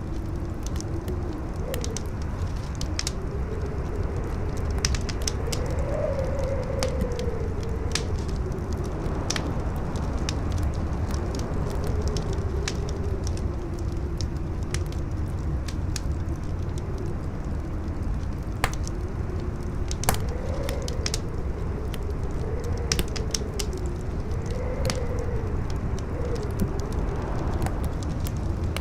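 Howling wind, a wavering moan that rises and falls over a low rumble, together with a wood fire crackling with scattered sharp pops, two of them louder about two-thirds of the way through.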